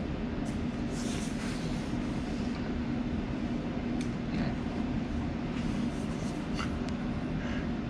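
Steady hum of an overhead projector's cooling fan running, with faint scratches of a pencil tracing on a pine board now and then.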